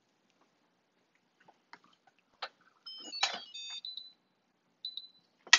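Clicks and knocks of an Instant Pot electric pressure cooker's lid being turned and lifted, with short runs of electronic beeping tones stepping up and down in pitch, about three seconds in and again near the end.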